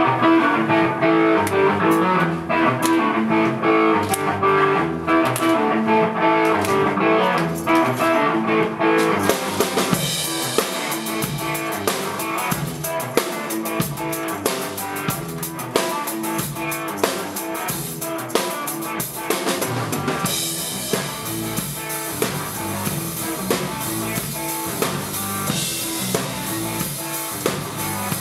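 Rock band playing an instrumental intro, with guitar and a drum kit keeping a steady beat. The cymbals come in fully about nine seconds in, and the drums get fuller again about twenty seconds in.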